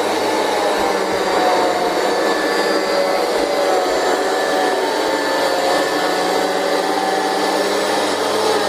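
Vacuum cleaner running steadily, its motor whine wavering slightly in pitch as the suction load shifts.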